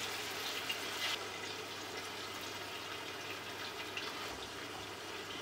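Marinated chicken pieces sizzling steadily in hot oil in a metal pot, with a faint tap or two of metal tongs.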